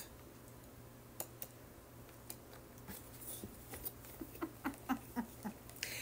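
Faint, scattered clicks and taps from handling the lid and body of a small electric grain grinder while working the lid loose. The clicks come a few at a time at first and more often in the second half.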